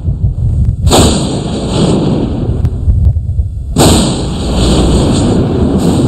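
Two heavy booms, about a second in and just before four seconds in, each dying away in a long rumble over a steady deep rumble.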